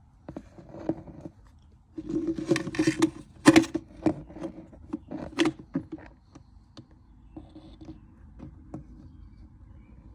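Tools and metal fittings being handled: irregular clicks, knocks and scraping, busiest from about two to six seconds in, then a few scattered taps.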